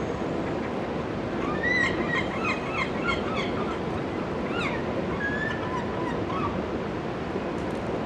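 Gulls calling: a quick run of squawking notes about two seconds in, then a few drawn-out cries, over steady city traffic noise.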